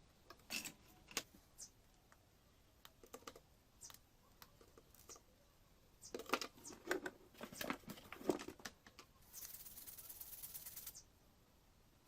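Scattered clicks, taps and rustles of hands handling a switch-mode power-supply circuit board and small tools on a workbench, busiest between about six and nine seconds in. Then a steady hiss lasting about a second and a half.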